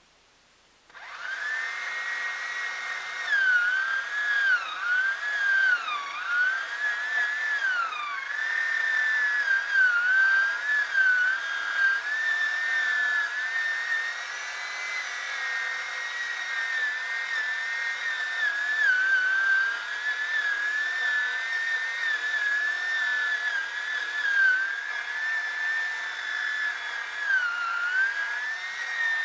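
Chainsaw running at high revs, cutting in abruptly about a second in; its high pitch dips and recovers again and again as the chain is loaded in the cut, most of all in the first several seconds.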